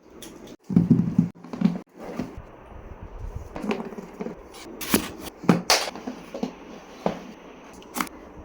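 A laptop's box and packaging being handled and opened: a few dull thumps in the first two seconds, then scattered sharp clicks and rustling.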